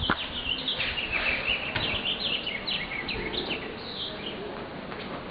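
Birds chirping: many short, quick chirps, thinning out near the end, over a steady low rumble.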